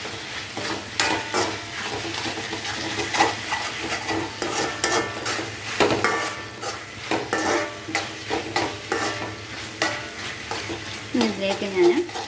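A metal spoon stirring and scraping onions and capsicum in sauce in a two-handled metal kadai. The food sizzles, and the spoon scrapes and knocks against the pan over and over.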